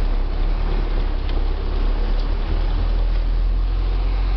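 Isuzu Giga tronton truck's diesel engine running steadily at low speed, a constant deep rumble.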